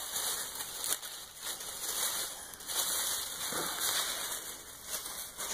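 Tissue paper rustling as it is handled and pushed aside while a gift box is unpacked.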